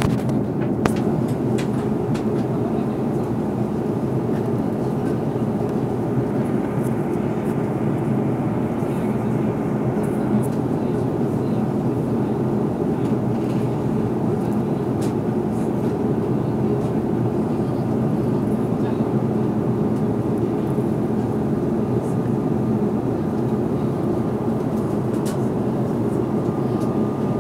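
Airliner cabin noise in flight: a steady, even rush of engine and airflow noise. A faint steady tone comes in near the end.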